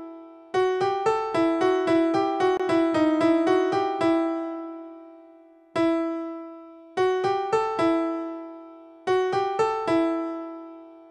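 Background keyboard music: short runs of bright piano-like notes, each phrase ringing away into a brief pause before the next.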